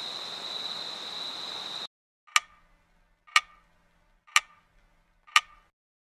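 Steady hiss with a thin high tone that cuts off about two seconds in, followed by four sharp clock ticks, one a second.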